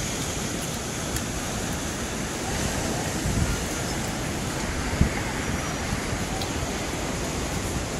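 Ocean surf washing steadily onto the beach, with wind rumbling on the microphone. A single short knock comes about five seconds in.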